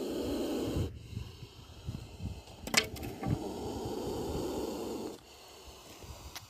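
A cobra hissing in two long, breathy exhalations, with low knocks and one sharp click between them.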